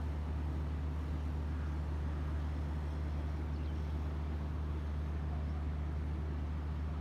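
Steady, unchanging low drone of a vehicle's engine with road noise.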